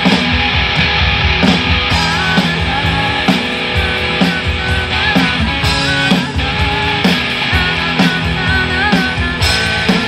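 Live rock band playing with a steady drum beat, electric guitar, bass and keyboard.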